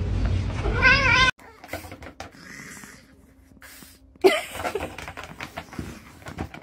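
A domestic cat meows once, a wavering call about a second in. A few seconds later a short loud animal call comes, followed by faint scattered clicks.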